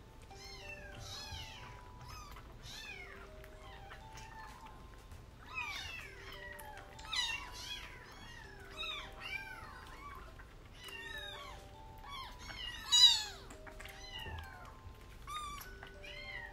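Young kittens mewing over and over in short, high-pitched cries, loudest about 13 seconds in, with soft background music underneath.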